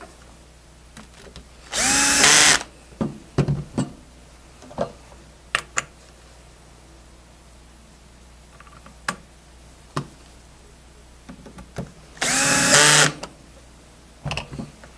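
Cordless screw gun on a low torque setting, run twice in short bursts of under a second, each whirring up in pitch, driving the screws that hold the new valve handles onto a refrigeration charging manifold. Between the two runs come light clicks and knocks of parts and tools being handled.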